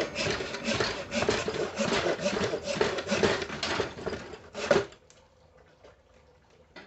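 Sandpaper rubbed back and forth by hand on a steel axe head, taking off rust, in quick strokes several times a second that stop about five seconds in.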